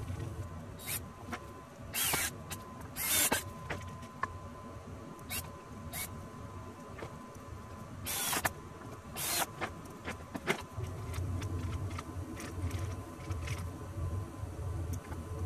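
Workshop work sounds: scattered clicks and knocks of wood and tools being handled, with several short noisy bursts.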